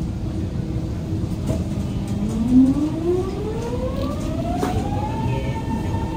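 GTO-VVVF traction inverter and motors of a Siemens-Adtranz Type A1 metro train whining as the train accelerates away from a station. The tone climbs steadily in pitch from about two seconds in, then levels off into a steady high whine, over the rumble of the car.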